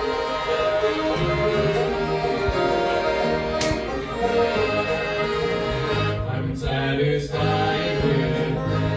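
A live string band of fiddles and acoustic guitar playing a gospel tune in a bluegrass style, with voices singing.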